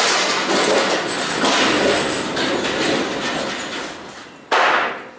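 Steel pallet jack rolling a loaded pallet across the trailer floor and dock plate, its wheels rattling and rumbling, then a sudden loud clank about four and a half seconds in.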